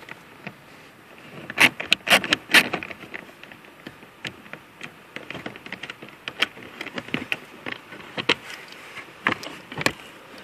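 Scattered, irregular clicks and light knocks of a small hand tool and plastic dash trim being worked loose, with a few sharper clicks about two seconds in and again near the end.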